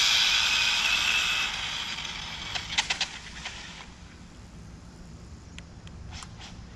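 ARRMA Limitless RC car's 6S brushless electric drivetrain whining at full speed on a drag pass, fading steadily over about three seconds as the car pulls away. A few sharp clicks follow near three seconds in, then only faint background.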